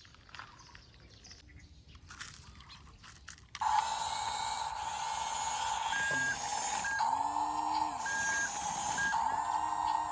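Toy remote-control bulldozer starting up about three and a half seconds in: its small electric motor runs with a steady whine, short high beeps come four times, and the motor's pitch rises and falls as it drives. Before that there are only faint clicks.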